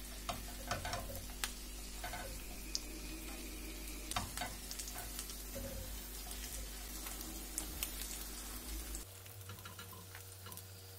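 Oil sizzling steadily under fritters in a frying pan while they are turned over, with scattered light taps and scrapes of a wooden spatula and a silicone spatula against the nonstick pan.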